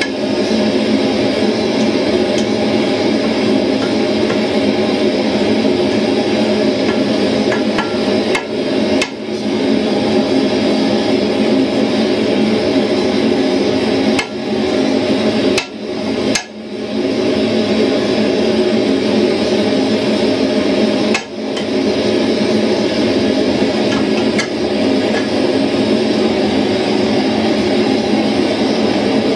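Hand hammer striking the rivet at the pivot of a pair of forged blacksmith's tongs on the anvil, peening the rivet over, with a steady loud roar underneath.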